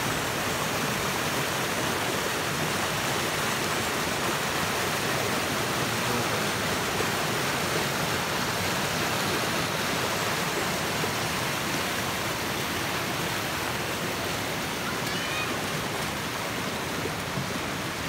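Rocky mountain stream rushing over and around boulders in white-water rapids: a steady, even rush of water.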